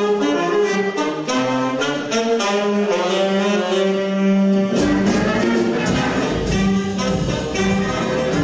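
Instrumental music led by brass, a melody of held notes that change every second or so; about five seconds in the music becomes fuller, with a deeper bass coming in.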